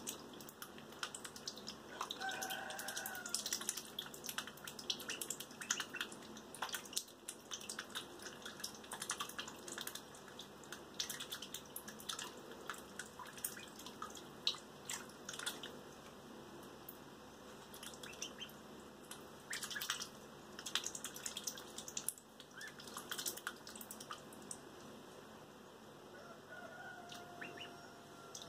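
Ducklings paddling and dabbling in shallow bathtub water, bills dipping and snapping after minnows, making many small splashes and drips. A short duckling peep comes about two seconds in and another near the end.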